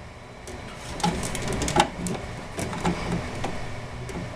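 Power supply cables and their plastic motherboard connector being handled and routed inside a desktop computer case: irregular clicks and rustling from about a second in.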